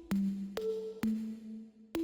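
Electronic background music: a plucked synth bass line with a sharp attack on each note, about two notes a second, changing pitch from note to note.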